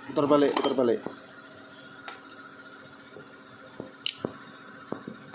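A few light, scattered metallic clicks and taps as small engine parts are handled, over a faint steady background hum.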